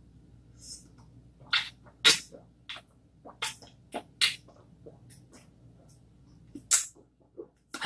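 A person gulping down a drink from a tumbler: a run of short, sharp swallowing clicks and gulps at irregular intervals, loudest about two seconds in.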